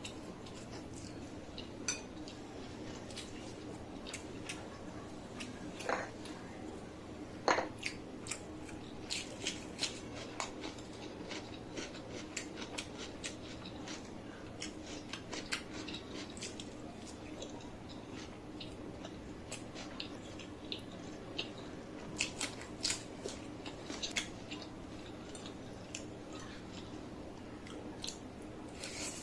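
Close-up eating sounds: a person chewing and biting food, heard as many irregular small wet clicks and crunches, with a couple of louder taps about six and seven and a half seconds in.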